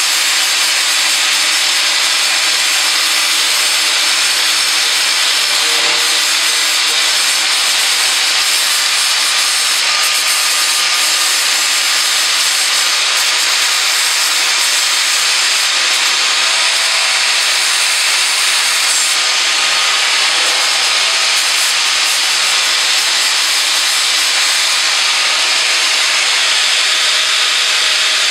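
Porter-Cable angle grinder running steadily with a high whine, its disc grinding the cutting edge of a steel Craftsman push mower blade to sharpen it.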